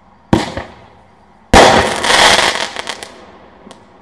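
Keystone Super Six single-shot firework tube firing its crackle-with-blue-stars shell: a launch thump about a third of a second in, then the shell breaks loudly about a second later into dense crackling that fades out over about a second and a half.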